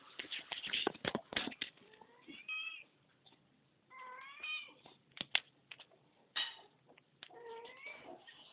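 Domestic cat meowing three times, short pitched meows a couple of seconds apart. A burst of scratchy knocks and rubbing noise comes in the first two seconds, with one more sharp click in the middle.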